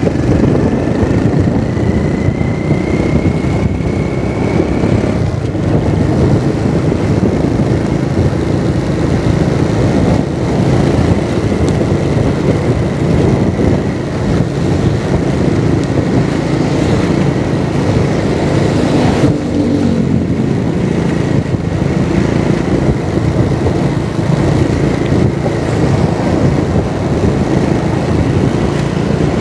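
A motor vehicle's engine and road noise at travelling speed, steady throughout, with a faint rising whine in the first few seconds.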